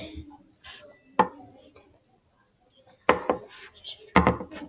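Sharp knocks and taps of a plastic rolling pin and hands against a wooden tabletop while fondant is rolled and handled, several at uneven spacing, some in quick pairs, with light rubbing between.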